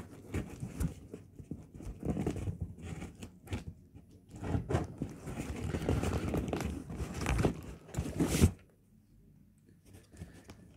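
Packaging being opened by hand: rustling, crinkling and tearing with scattered sharp clicks, busiest in the second half, then nearly quiet for the last two seconds.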